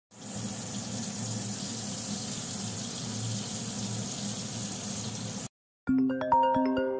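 A steady hissing noise with a low hum under it, which cuts off after about five and a half seconds. A moment later a phone ringtone starts, a melody of chiming notes.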